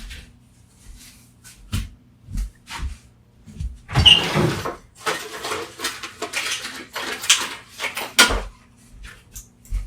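Handling noise from hand tools and plastic wall adapters: scattered clicks and knocks, with a louder scraping clatter about four seconds in followed by a run of shorter scrapes and taps.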